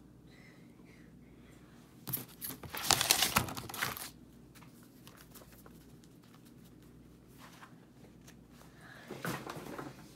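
Crinkling and rustling of things being handled close to the microphone, loudest for about two seconds starting about two seconds in, with a shorter patch near the end.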